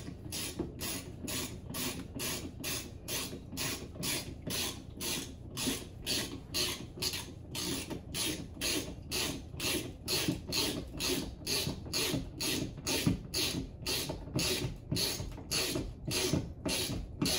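Hand ratchet wrench tightening a lag bolt for a TV wall-mount bracket into a wall stud. Each stroke gives a short burst of ratchet clicks, in an even rhythm of about three strokes a second.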